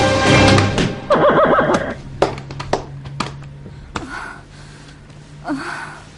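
Film music dies away in the first second, then a horse whinnies briefly with a wavering pitch. A few soft knocks and two short cries follow.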